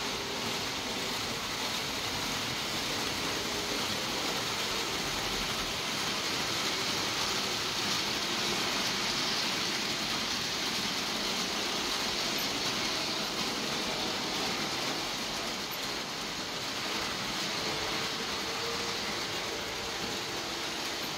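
Märklin model trains running on the layout: a steady whir of motors and wheels rolling on metal track. It gets a little louder in the middle as a train passes on the near track.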